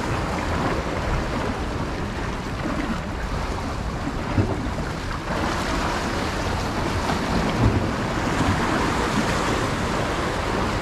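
Sea waves washing and splashing against concrete breakwater blocks, with wind buffeting the microphone in a steady low rumble.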